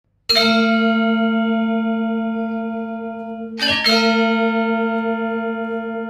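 Two struck bell tones at the same pitch, about three and a half seconds apart. Each rings out long and slowly fades, opening a music track.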